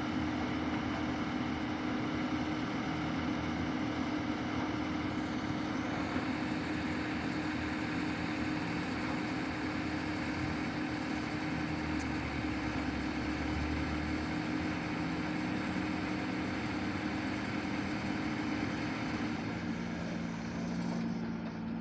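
Kobelco 220 excavator's diesel engine running steadily, with a constant hum; near the end its note drops lower.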